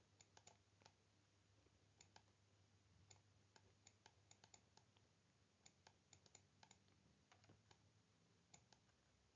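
Very faint, irregular clicks, a few a second, from handwriting words onto a computer screen with an input device, over a faint, steady low hum.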